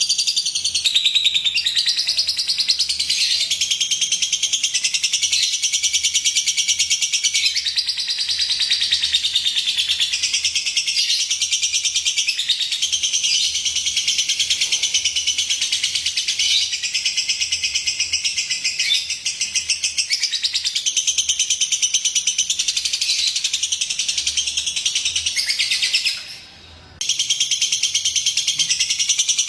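Lovebird chattering: a long, rapid run of high chirps and twitters, breaking off for about a second near the end before resuming.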